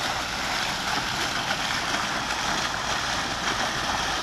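Small fountain jets splashing steadily into a pond, a continuous rushing patter of falling water.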